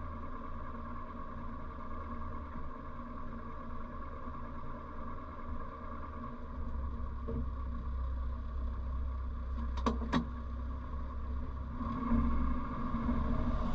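A 1957 Morris Minor's 948cc four-cylinder engine idling steadily, heard from inside the cabin, with two sharp clicks about ten seconds in. Near the end the engine note rises and grows louder as the car pulls away.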